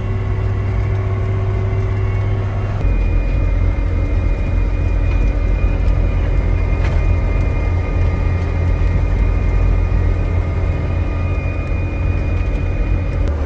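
Engine of a Case Steiger 9380 Quad Track tractor running steadily under way, heard from inside the cab as a constant low drone. About three seconds in, the drone shifts deeper and a faint high steady whine joins it.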